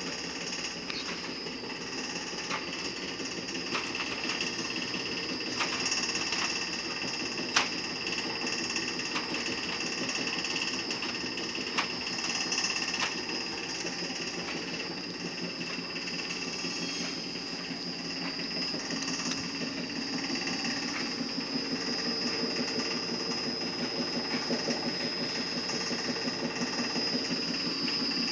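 Wire drum packing machine for flux-cored welding wire running: a steady mechanical hum with a fast, even pulsing beat and a high whine. A few sharp clicks sound over it, the loudest about a quarter of the way in.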